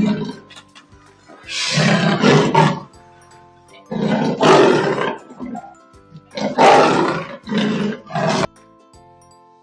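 Leopard calling: three long rasping calls about two and a half seconds apart, each broken into two or three strokes, stopping about a second before the end. Light background music runs underneath.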